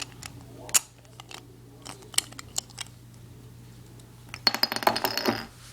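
Small Beyblade parts clicking and clinking as they are handled and fitted together: scattered single clicks, one sharp one just under a second in, then a quick rattle of many clicks near the end.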